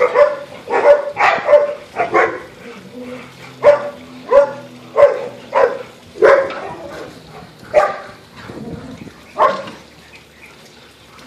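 Dogs barking during rough play: about a dozen short, sharp barks at irregular intervals, stopping a couple of seconds before the end.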